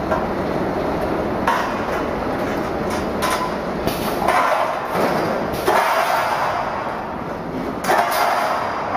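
Stainless steel tube bagging machine running with a steady mechanical noise, broken by several sharp, irregular metallic knocks and clatters as the steel tubes move on its rack.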